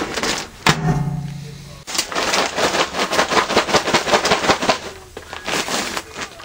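Paper microwave popcorn bag crinkling and rustling as it is handled and pulled open, in dense rapid crackles with a pause before more near the end. A sharp click about two-thirds of a second in.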